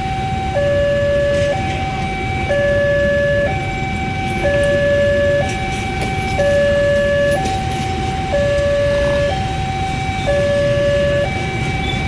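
Railway level-crossing warning alarm sounding a two-tone electronic signal, a higher and a lower note each held about a second in steady alternation, over the low rumble of a passenger train rolling past on the rails.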